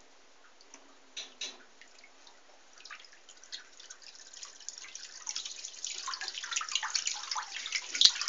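Water splashing and dripping in a bathtub as a metal spoon lure is drawn around in circles on a fishing line. Faint at first, the splashing grows busier and louder from about three seconds in, with the loudest splash near the end.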